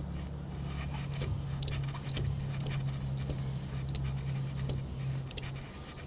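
Faint light metal clicks and taps as a large wrench and the cast-iron change-gear bracket on an old South Bend lathe are worked by hand, over a steady low hum.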